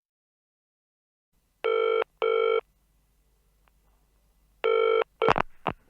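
Telephone ringing in the British double-ring pattern: two short rings about a second and a half in, a pause, then the first ring of the next pair near the end, followed by a few short clicks as the answering machine picks up.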